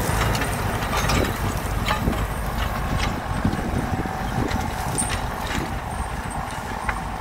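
Tractor engine running under load as it pulls a disc plough through dry, clumpy soil, with irregular knocks and clatter from the implement over a steady low rumble. It grows a little fainter as the tractor pulls away.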